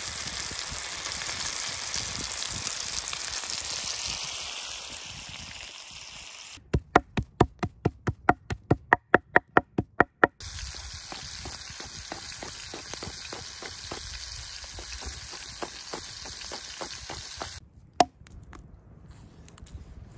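Bacon-wrapped pork rolls sizzling in a cast-iron frying pan, then a cleaver chopping raw pork on a wooden board in quick, even strokes, about four a second. The chopping carries on more lightly over a faint hiss, with one last sharp chop near the end.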